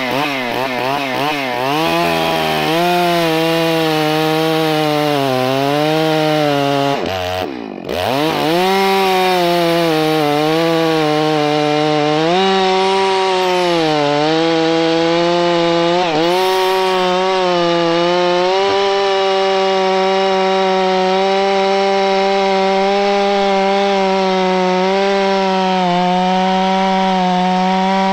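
Two-stroke chainsaw with a long 36-inch bar cutting through a large log at full throttle, its engine pitch sagging and recovering as the chain loads up in the wood. About seven seconds in the revs drop briefly and then climb back, and the saw cuts on steadily.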